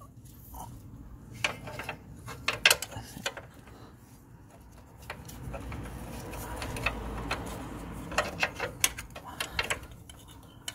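Hand socket ratchet clicking in short runs, with metal clinks, while working the bolts of a new transmission mount on a Honda Odyssey. A stretch of rubbing and rustling sits between the runs of clicks.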